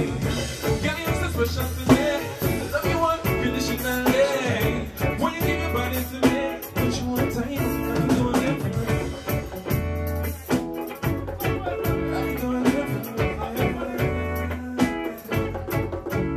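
Live band music: a man singing into a microphone over electric bass guitar and drums, with a bass note repeating about every two seconds.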